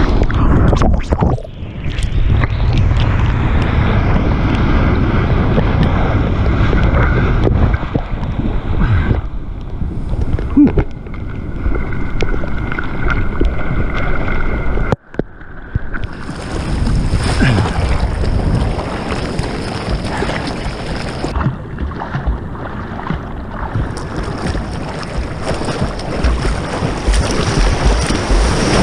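Breaking surf and whitewater rushing and splashing around a bodyboard at the waterline, with wind buffeting the microphone. The noise cuts out briefly about halfway through, then resumes.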